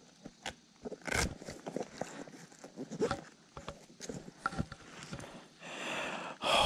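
Irregular small clicks, knocks and splashes of a smallmouth bass being reeled in and landed with a plastic lip-grip tool, with a rising splashy hiss near the end as the fish is lifted from the water.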